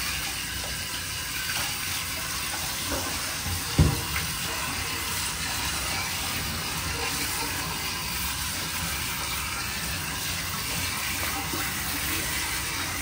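Handheld shower head spraying water steadily, rinsing shampoo out of a wet cat's fur in a bathtub. A single sharp thump about four seconds in.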